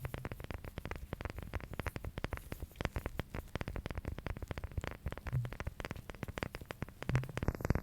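Fingertips and nails tapping and scratching rapidly on a small object, a dense, irregular patter of little clicks with an occasional soft thud.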